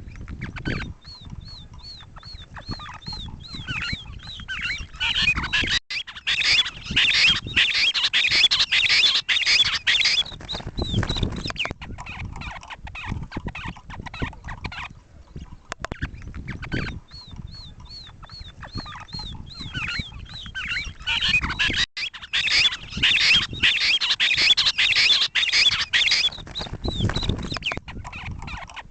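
Game-bird calls, likely grey francolin: a run of short high notes, about three a second, that builds into a loud, rapid chatter of calls lasting several seconds. The whole sequence plays twice.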